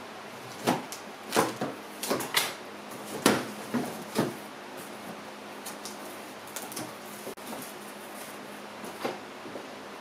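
Scissors slicing through the packing tape on a cardboard box, then the flaps being pulled and folded open: a quick run of sharp cuts and rips in the first four seconds, followed by a few light cardboard taps and rustles.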